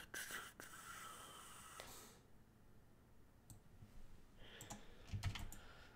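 Faint, scattered clicking of a computer mouse and keyboard, a little busier near the end.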